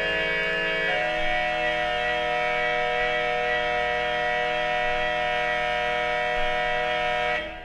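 Schwenkedel pipe organ's Ranquette 16, a short-bodied reed stop of the Récit, playing a polyphonic verset. The chord changes about a second in, then a held final chord stops shortly before the end. It is heard from a vinyl record.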